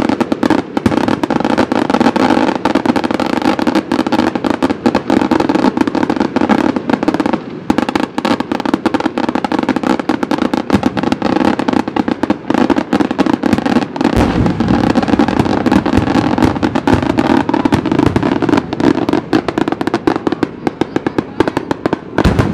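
Fireworks firing continuously from a tube hung beneath a hot-air balloon: a dense, rapid crackle of pops without a break, with deeper booms added from about two-thirds of the way in.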